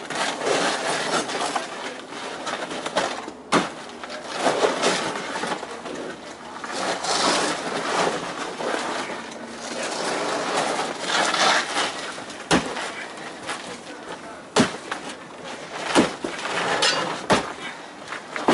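Old roofing being pried and torn up from a flat roof deck: steady scraping and ripping as the layer is lifted and rolled back, with several sharp knocks from a steel bar and a shovel striking, mostly in the second half.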